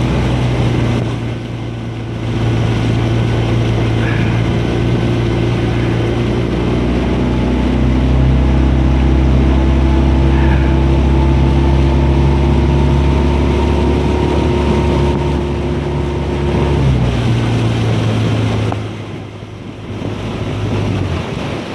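Motorboat engine running steadily with wind and water noise. It dips in level about nineteen seconds in, and its low hum cuts out just before the end.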